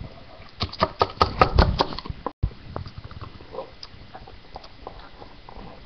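Handling noise from small plastic Littlest Pet Shop figurines being moved about and set down: a quick run of knocks and taps, loudest in the first two seconds, then a brief gap and fainter taps.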